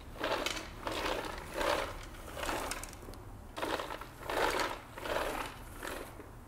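Hurricane Spin Broom, a push-driven sweeper with spinning brushes, pushed in short strokes across a tile floor over Cheetos crumbs: a scratchy sweeping swish with each stroke, about one a second.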